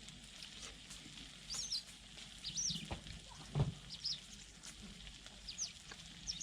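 A bird calling: short, high chirps that rise and fall, repeated about once a second. A soft low thump comes about three and a half seconds in.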